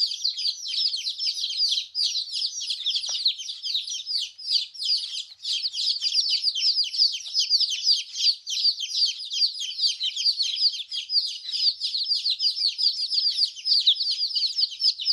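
A group of baby chicks chirping continuously: many short, high, downward-sliding peeps overlapping, several each second.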